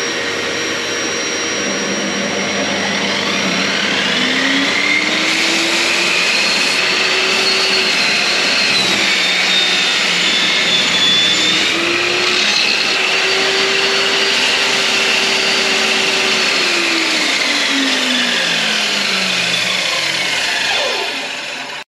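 Electric power saw cutting through a teak board: the motor runs at full speed with a high whine, its pitch dropping twice as the blade bites into the wood and recovering in between. Near the end the pitch sinks steadily under load, then the sound cuts off sharply.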